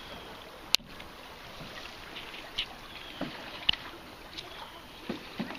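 Canoe paddling: paddle strokes with a sharp knock about a second in and another near the middle, then a few lighter taps and splashes.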